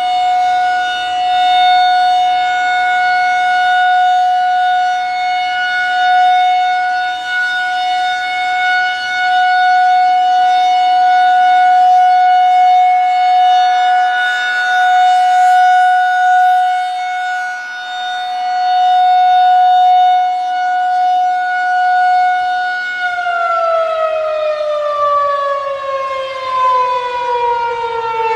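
Federal Signal 2001-SRN single-tone chopper siren sounding its steady Alert tone, swelling and fading in loudness. About 23 seconds in, the pitch starts falling steadily as the siren winds down at the end of the Alert.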